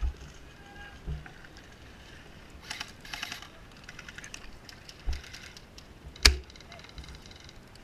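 Scattered sharp clicks and low knocks, with a quick rattling run of clicks about three seconds in and one loud crack a little past six seconds.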